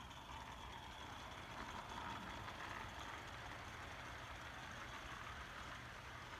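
Small Accucraft Ruby live-steam garden locomotive running with its train, a faint steady hiss of steam and running gear that swells about two seconds in as it passes closest, then eases off.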